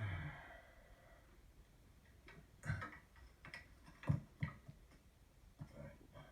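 Faint, irregular clicks and light knocks, about seven in a few seconds, from tools being handled at a rear drum brake.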